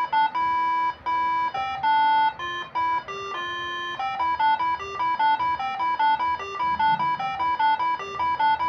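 Moreno MS7 air-horn melody module playing tune number 11: a melody of stepped horn notes, two pitches sounding together. The notes are longer and held at first, then become quick and short from about halfway through.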